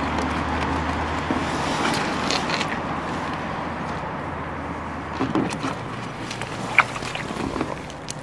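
Steady rush of flowing river water, with a few small splashes and knocks from about five seconds in as hands work at the water's edge.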